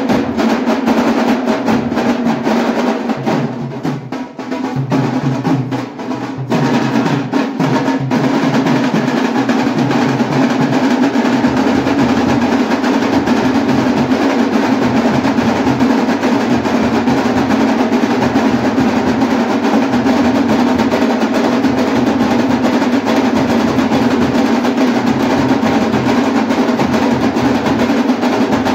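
A large dhol band playing together: many two-headed barrel drums beaten with sticks in a loud, dense, continuous rhythm. It dips briefly about four seconds in, then carries on at full strength.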